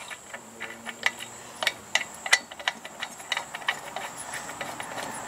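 Irregular sharp mechanical clicks, about two or three a second.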